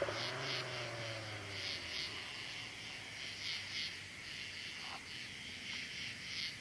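Crickets chirping in steady, evenly repeated pulses, over the drone of a VR6-engined 1990 VW Jetta Mk2 with a Flowmaster exhaust driving away, which fades out about two seconds in.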